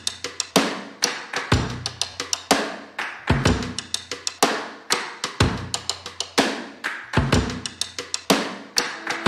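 Background music: a drum-kit beat, with a kick drum about once a second and quicker snare and cymbal hits in between.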